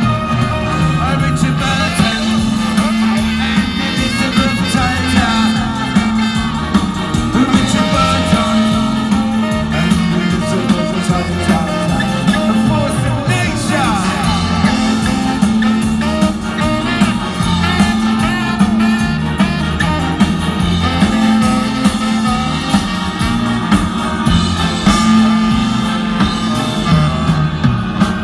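A ska band and an orchestra playing live, with a steady bass line under guitar and strings, and some singing.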